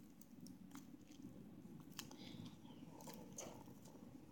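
Near silence: faint scattered clicks and rustles of hands opening the sealed packaging of Micron drawing pens, over a low room hum.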